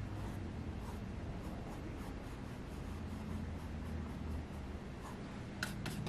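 Paintbrush strokes on a stretched canvas, a soft irregular scratchy rubbing as acrylic paint is brushed on, with a few short sharper ticks near the end. A low steady hum runs underneath.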